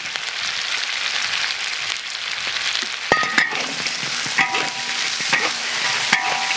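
Pork trotter pieces sizzling in a large iron wok as they are stir-fried, with a steady frying hiss. From about three seconds in, a metal spatula scrapes and strikes the wok several times, each strike ringing briefly.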